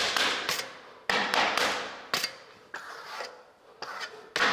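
Steel plastering trowel scraping over wet lime-marble spatula plaster on a wall: about five short strokes, each starting sharply and fading. It is a light smoothing pass that pulls pits into the fresh plaster for a concrete-look finish.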